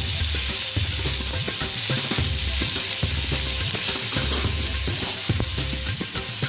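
Potatoes and onions sizzling in hot mustard oil in a metal pan, stirred with a perforated metal ladle that scrapes and knocks against the pan many times.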